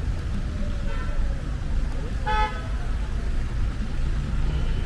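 Street traffic rumbling with engines idling in a jam, and a short car horn toot a little over two seconds in; a fainter, shorter beep sounds about a second in.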